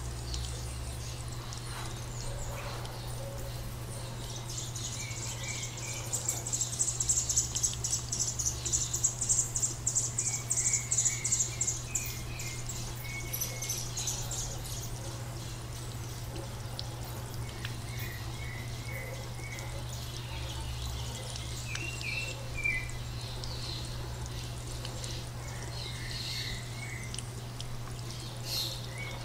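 Birds chirping in short repeated series, with a loud, high, fast-pulsing insect buzz for about ten seconds in the first half, over a steady low hum.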